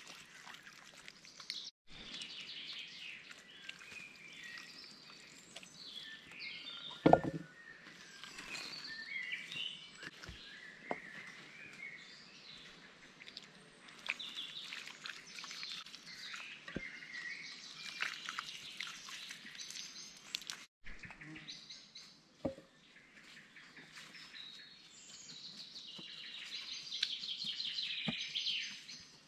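Woodland birds chirping and singing throughout, with a few light knocks of handling at the table. A single sharp thump about seven seconds in is the loudest sound.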